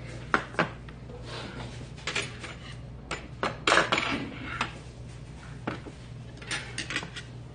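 Metal chopsticks and tableware clinking and clattering on a restaurant table: a string of separate knocks, the loudest cluster about four seconds in, over a steady low hum.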